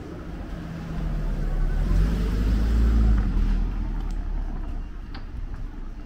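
A motor vehicle drives past: engine and road rumble build up, peak about two to three seconds in, then fade away.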